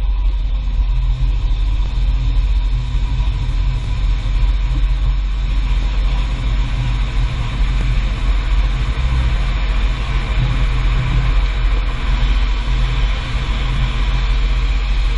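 Car driving with a steady low rumble of road and tyre noise and a hiss above it, plus a faint steady whine.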